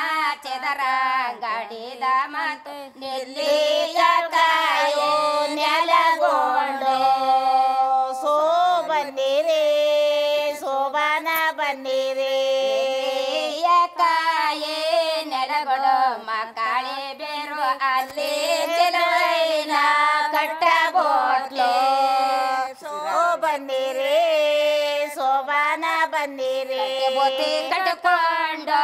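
A woman singing an Indian-style melody, her voice sliding and wavering between long held notes.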